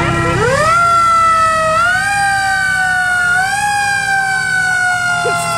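Fire engine siren rising steeply in pitch in the first second, then sliding slowly down, with two further pushes up in pitch, over the low rumble of passing trucks.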